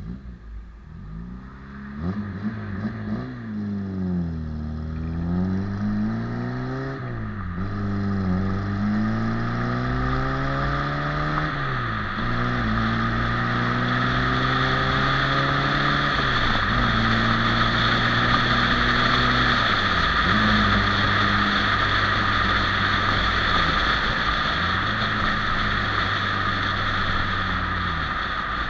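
A 1990 Peugeot 205 Roland Garros's four-cylinder engine and exhaust pulling away and accelerating through the gears. The pitch climbs in each gear and drops at every shift, then settles into a steady cruise about halfway through under a growing rush of wind and tyre noise.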